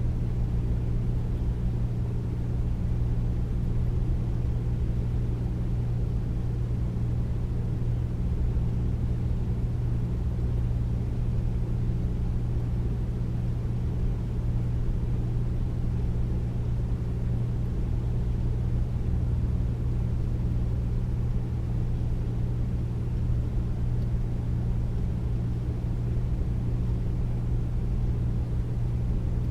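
Air conditioner running: a steady, deep hum with a low rumble beneath it that does not change.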